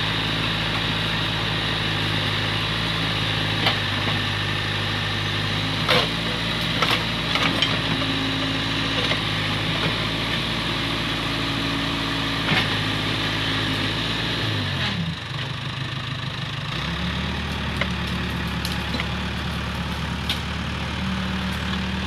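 Case 580K backhoe's diesel engine running steadily while the backhoe digs out roots and branches, with a few sharp knocks and cracks in the first half. About two-thirds of the way through, the engine note falls away and then settles again at a different steady pitch.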